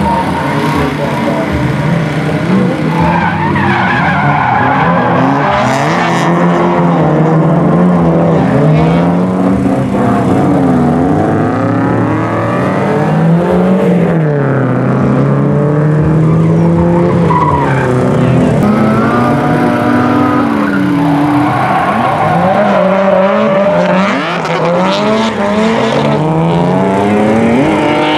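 Several Nissan S-chassis drift cars in a tandem drift, their engines revving up and down over and across each other, with tyres squealing and skidding.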